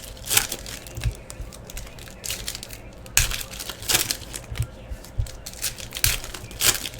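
Trading card pack wrappers crinkling and tearing open as packs are unwrapped and the cards handled, in irregular sharp rustling bursts.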